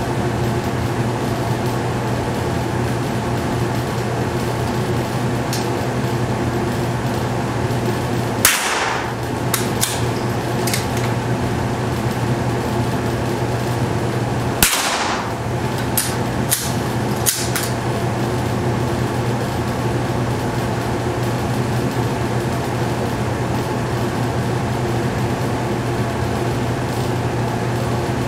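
Two shots from a Tikka T1X bolt-action .22 LR rifle, about six seconds apart, each followed within a couple of seconds by a few sharp clicks as the bolt is worked. A steady mechanical hum runs beneath them.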